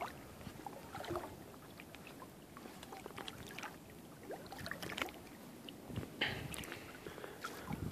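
Creek water lapping and trickling softly around someone wading, with scattered small irregular splashes.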